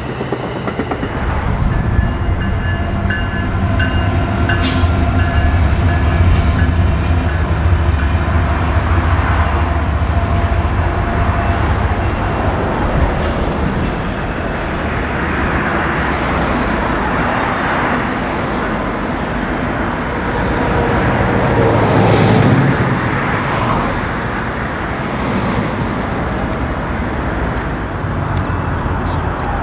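A diesel-hauled train passing: a heavy low locomotive rumble for the first dozen seconds, then the steady rolling noise of the cars on the rails.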